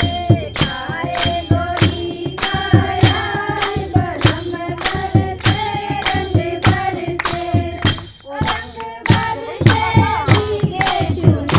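Holi folk music: singing over a steady beat of sharp percussion strikes, about three a second.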